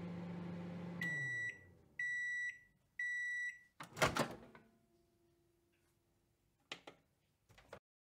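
Microwave oven finishing its cycle: the running hum winds down about a second in, then three half-second beeps a second apart signal that the cooking time is up. A loud clack of the door opening follows, then two softer knocks near the end.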